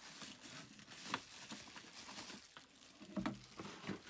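Cardboard packaging and bubble wrap rustling and scraping with scattered small clicks as a wrapped camera is lifted out of its box.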